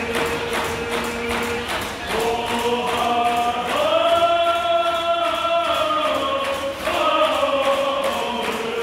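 Powwow song: a group of voices singing in unison to a steady, fast hand-drum beat. They hold long, high notes through the middle before dropping back down.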